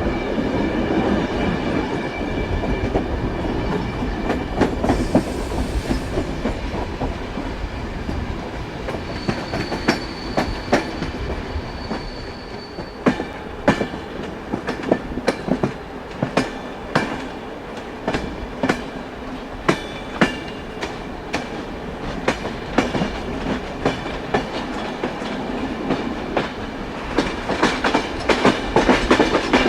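Train wheels running on rails: a steady rumble with sharp clacks over the rail joints that come thicker and faster in the second half, and a faint high squeal from the wheels for a couple of seconds about ten seconds in.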